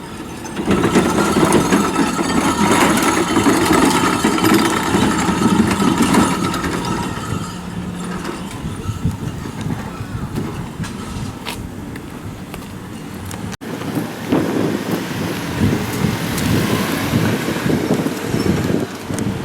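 A motor vehicle passing close by with a steady engine tone, loudest over the first several seconds and then fading away. After a sudden cut, wind buffets the microphone.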